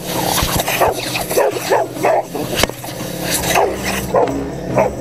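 Boxer dogs barking and yipping excitedly, two or three barks a second, over a steady hiss of blown air from an air compressor that dies away about four seconds in.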